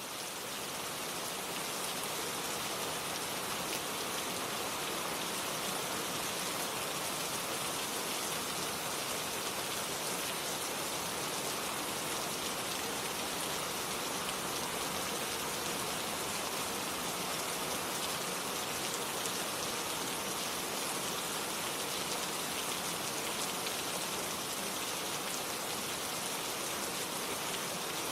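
Steady heavy rain falling, an even hiss that fades up over about the first second.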